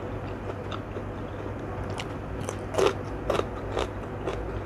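Close-up chewing of a bite of raw cucumber: wet, crisp crunches, a few small ones at first, then several louder ones about half a second apart in the second half.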